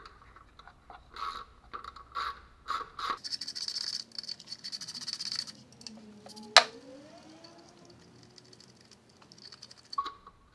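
Socket tool undoing the bolts of the intake-manifold support bracket: scattered metal clicks, then about two seconds of rapid ratchet clicking, and one sharp click a little past the middle.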